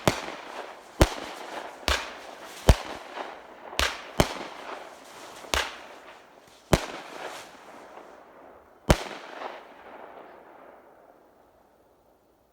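Consumer aerial fireworks going off: about nine loud bangs at uneven intervals, with noise lingering between them, dying away near the end.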